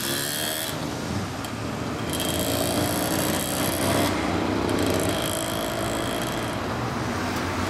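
Several motorcycles pulling away together, among them a Honda MVX250F two-stroke triple, their engines running with the pitch rising and falling as they ride off.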